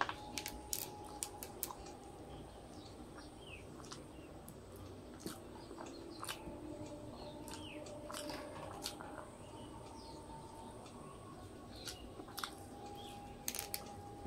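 Eating by hand: chewing with wet mouth clicks and lip smacks over a mouthful of rice and egg curry, with fingers squishing rice into gravy on the plate. Sharp clicks come irregularly, clustered about a second in and again near the end.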